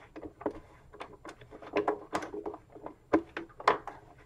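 Hard plastic proton pack shell being nudged and shifted on its mounting board, giving irregular small knocks, clicks and scrapes, with a few sharper knocks in the second half.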